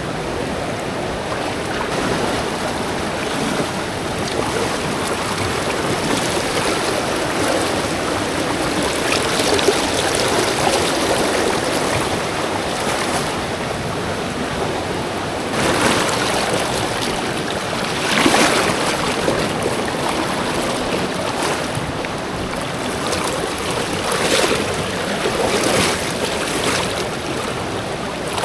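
Steady rush of fast-flowing water, swelling louder a few times.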